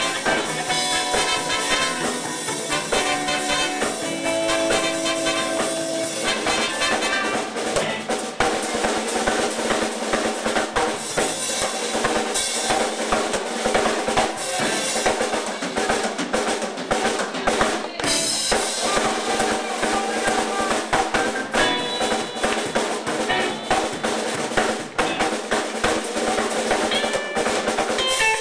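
Live Chicago-style blues band playing, with the drum kit's snare and cymbals to the fore over guitars and saxophones.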